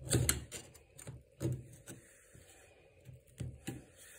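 A scraper blade scraping old toilet wax off a toilet flange and the tile floor beside it: a few irregular scrapes and knocks, the loudest right at the start, others about a second and a half in and again near three and a half seconds.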